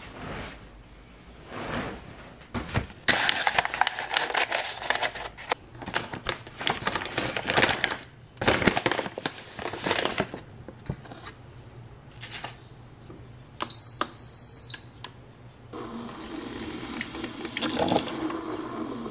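A packet rustling and crinkling in the hands for several seconds. Then a single electronic beep about a second long, and a drip coffee maker starting up with a steady hum.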